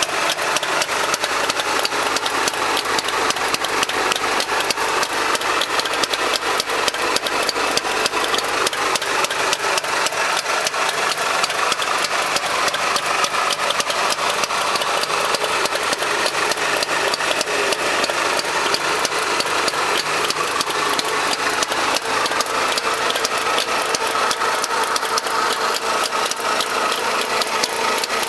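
Trabant engine running steadily, an even, fast-pulsing machine sound with no change in speed.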